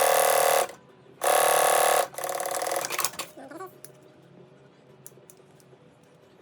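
Sewing machine stitching in two short, fast runs of about a second each, followed by a quieter stretch that stops about three seconds in; a few faint clicks follow.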